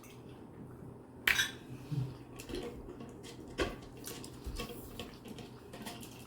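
Eating sounds: scattered soft clicks and clinks of utensils against a dish while chow mein is being chewed, a few clearer clinks among many faint ones.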